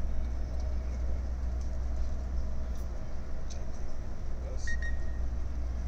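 Steady low rumble of a coach bus heard from inside the cabin, with an even hiss of engine and road noise. A short, thin beep sounds near the end.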